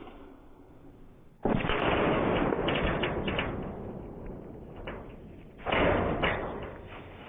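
Slowed-down report of a big-bore PCP air rifle slug bursting a full soda can: two deep, drawn-out booms, the first about a second and a half in and the second near the six-second mark, each dying away over a couple of seconds. The can popping is unusually loud.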